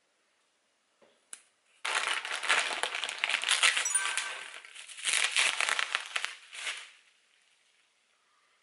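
Plastic bubble-wrap packaging crinkling and rustling as a bottle is pulled out of it. It comes in two spells, starting about two seconds in and dying away near the end, after a couple of faint clicks.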